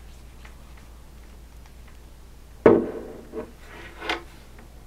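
Handling noise from a Baofeng UV-5R handheld radio: faint clicks as its rubber duck antenna is screwed on, then a sharp knock against the wooden desk a little past halfway, followed by two softer knocks.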